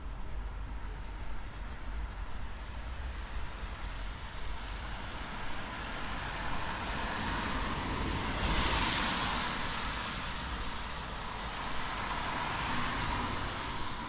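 A car passing on a wet road, its tyres hissing; the hiss swells to its loudest a little past halfway, then fades. A second, fainter pass follows near the end.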